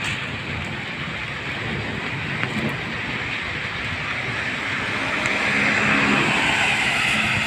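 Steady hiss of traffic on a wet road in rainy, windy weather; a vehicle's engine hum and tyre hiss swell about five seconds in.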